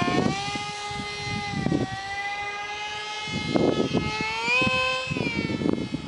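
High whine of an ultra micro RC jet's small electric motor and propeller in flight. Its pitch rises about a second in, holds steady, climbs again near the end and then drops back as the throttle changes, over irregular low rumbling.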